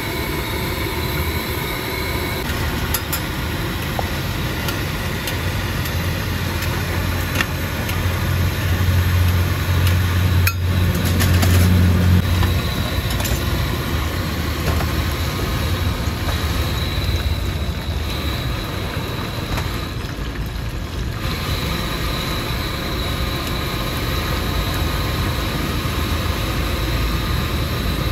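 Seafood omelette batter deep-frying in oil in a cast-iron pan: a steady sizzling and bubbling. Under it runs a low rumble that grows louder about eight to twelve seconds in.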